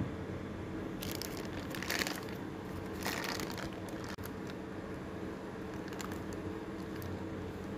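Plastic cling wrap crinkling under a hand in two short rustling bursts, about one and three seconds in, then a few light clicks, over a steady low hum.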